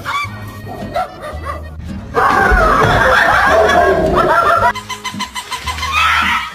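Background music with laughter over it, loudest for about two and a half seconds from about two seconds in.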